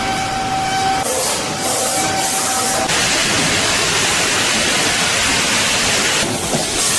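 Loud factory machinery noise: a steady hiss, with a steady whine over it for the first three seconds or so.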